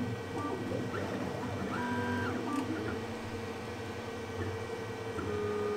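TwoTrees Sapphire Plus CoreXY 3D printer printing. Its stepper motors whine in sustained notes that keep changing pitch and switching on and off as the print head moves, over a steady mechanical hum.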